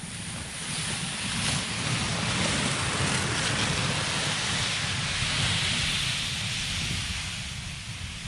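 Wind blowing across the microphone: a steady rushing hiss with a low rumble, swelling a little in the middle and easing near the end.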